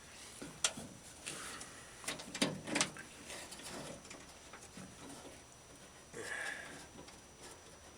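A few faint clicks and knocks, with a short scrape near the end, of metal parts being handled as the window track is worked loose inside a 1960 Ford F100's door.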